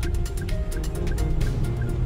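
Background music with a quick, steady ticking beat over held notes.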